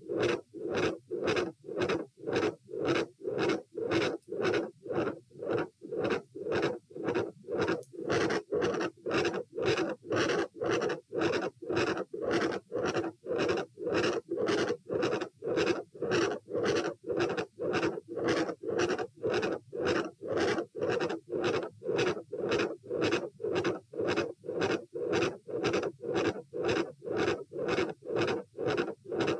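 Heart sounds heard through a stethoscope at the aortic area: a regular lub-dub with a loud second heart sound (S2) over a continuous murmur that fills the gaps between beats.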